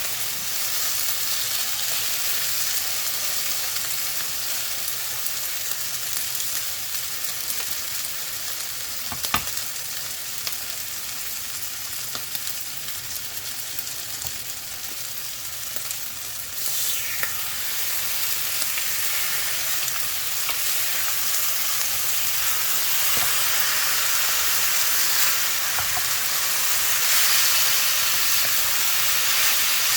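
Kimchi fried rice sizzling in a hot pan, a steady frying hiss with a single sharp tap about nine seconds in; the sizzle grows louder over the last several seconds.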